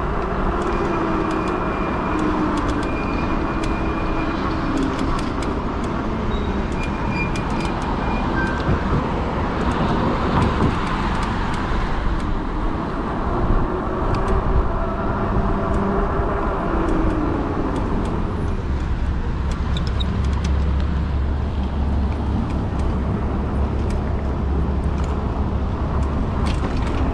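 Steady road and traffic noise heard while riding a fat-tire e-bike: a continuous rumble, with motor vehicles passing now and then.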